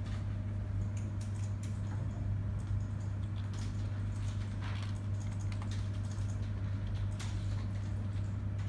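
Computer keyboard keys tapped and a few clicks, scattered and irregular, over a steady low hum.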